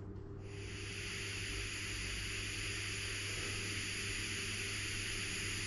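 ESU LokSound sound decoder in a Jouef 140C steam locomotive model, playing a steady steam hiss through the model's small speaker. The hiss comes on about half a second in, with the locomotive standing still.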